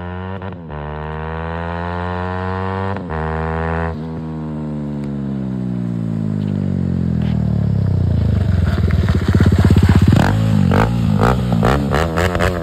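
TVS Apache RR 310's single-cylinder engine through an Akrapovic aftermarket exhaust, accelerating through the gears with rising pitch broken by shifts about half a second, three and four seconds in. It grows louder as the bike approaches and passes about ten seconds in, then gives a run of short throttle blips near the end.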